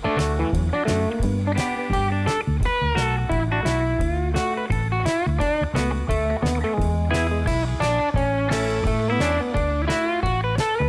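Outro music: a guitar-led instrumental tune over bass and a steady beat.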